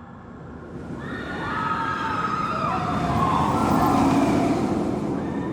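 Field recording of an amusement-park ride: a rumbling mechanical noise swells over several seconds, with high whining tones that step down in pitch midway.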